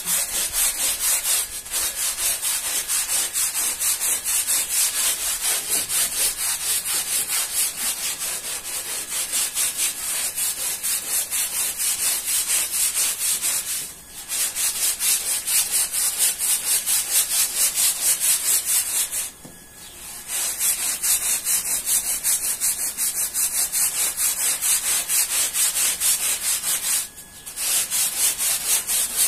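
Stiff-bristled hand scrub brush scrubbing a wet, foamy rug in quick, even back-and-forth strokes, a bright scratchy rhythm that stops briefly three times.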